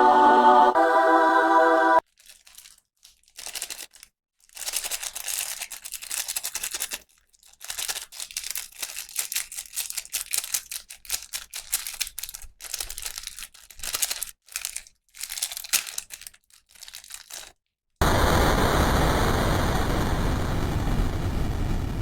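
A short musical jingle ends about two seconds in. Then come irregular rustling and crinkling bursts with short quiet gaps, as toy packaging is handled and opened. Near the end a loud, steady rushing noise starts suddenly.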